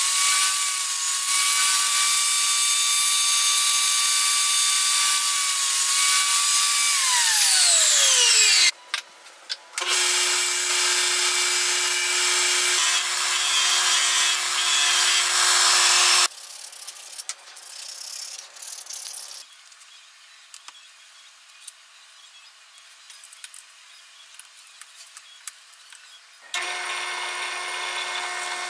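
A table saw runs with a steady whine, then is switched off and winds down with a falling pitch about seven seconds in. A disc sander then runs for about six seconds as a wooden block is sanded against it, followed by quieter handling noises, and near the end a drill press starts and bores into the wood.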